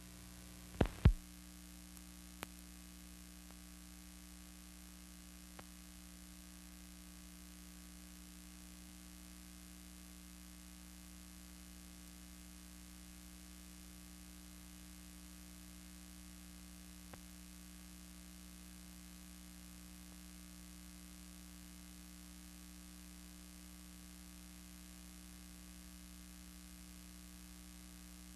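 Steady low electrical hum with a constant hiss underneath. Two loud pops about a second in and a few faint clicks later.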